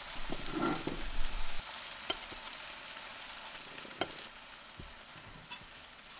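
Chicken thigh, potatoes, garlic and onion sizzling steadily in a frying pan on low heat, fading a little toward the end. Metal tongs scrape in the pan early on, with sharp clicks about two and four seconds in as potato slices are lifted out and set on a ceramic plate.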